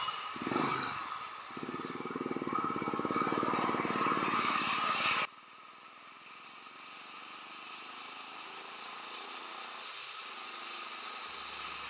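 Royal Enfield motorcycle engine running at riding speed with wind rushing past the camera, cut off abruptly about five seconds in. After that only a quiet, steady hiss that slowly swells, with a low hum coming in near the end.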